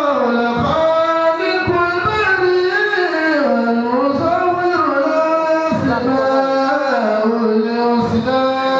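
A man chanting solo in a melodic, melismatic style into a handheld microphone. He holds long notes that slide between pitches, with brief pauses for breath.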